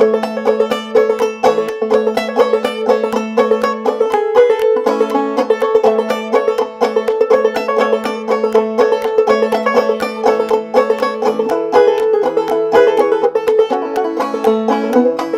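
Banjo-led bluegrass music: fast picked banjo notes over a steady bass, instrumental with no singing.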